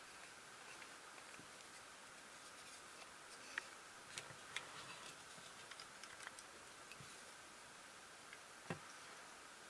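Faint scattered small clicks and taps over low hiss. A few sharper ones cluster in the middle and one more comes near the end.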